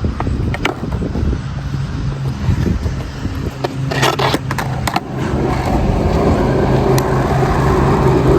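Skateboard wheels rolling on concrete with a steady rumble that grows louder over the last few seconds, and a cluster of sharp clacks about four to five seconds in, with another single clack later.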